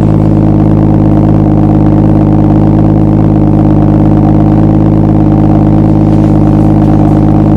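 BMW 240i's 3.0-litre turbocharged straight-six idling steadily through a fitted BMW M2 exhaust system, a loud, even burble from the quad tailpipes with no revving.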